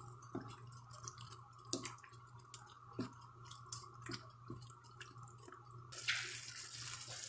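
A wooden spoon stirring a thick tomato sauce in a pan: wet squelching with scattered plops and light taps. About six seconds in a steady hiss of the simmering sauce comes in.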